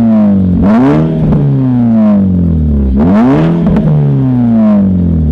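SEAT León Cupra R's tuned 2.0 TSI turbo four-cylinder revved hard through its Milltek exhaust while parked. The revs rise sharply about every two seconds, with smaller blips between, and the pitch falls away slowly after each.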